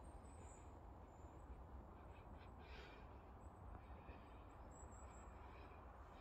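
Near silence: quiet woodland ambience with a few faint, high bird chirps.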